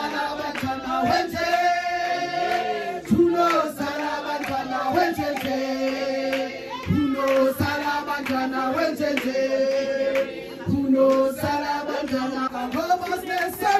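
A group of people singing a song together, with a woman's lead voice amplified through a microphone and PA speaker; long held notes that glide between pitches.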